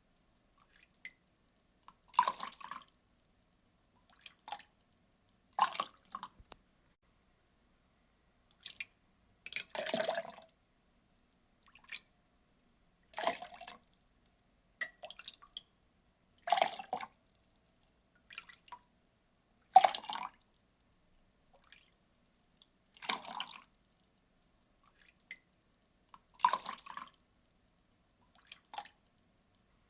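Water being poured in short splashes, each under a second, with a louder pour about every three seconds and fainter ones in between.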